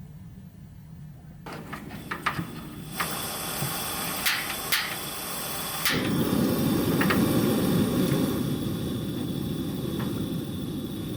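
Several sharp clicks and light knocks, then about six seconds in a steady hiss sets in and carries on.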